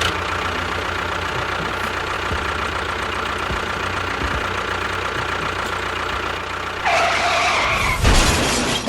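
A small engine running steadily with an even, fast firing rhythm. About seven seconds in a higher, hissing noise joins it, and about a second later there is a louder, rough burst of low sound.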